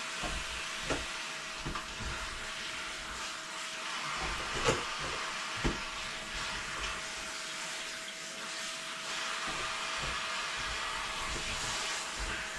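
A steady whooshing noise with a faint constant hum, like a fan running, and a few light knocks, the sharpest two near the middle.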